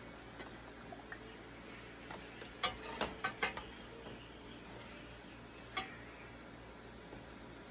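A ladle knocking and scraping against a stainless steel pot while scooping hot jelly: a quick run of four clicks near the middle, then one more knock a couple of seconds later.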